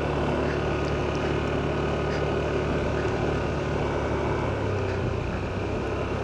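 Car interior while driving: a steady low engine hum with road noise, heard inside the cabin.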